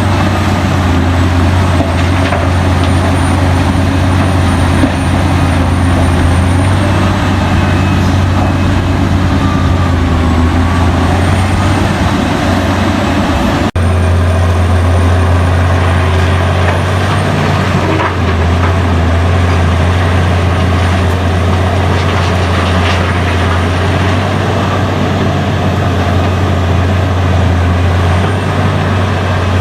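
Heavy diesel engines of a mining excavator and dump trucks running steadily under load, a deep continuous drone. It drops out for an instant about halfway through, then carries on.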